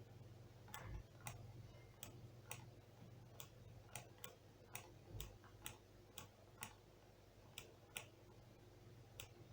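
Faint, irregular sharp clicks, roughly two a second, over a steady low electrical hum.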